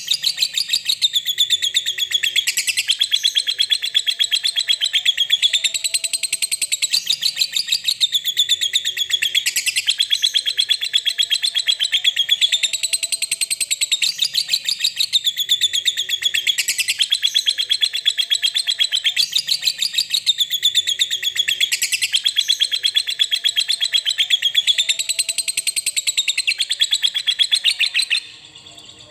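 Lovebird's 'ngekek panjang', its long chattering song: a loud, unbroken, rapid high chatter that rises and falls in pitch in waves every couple of seconds. It stops abruptly near the end.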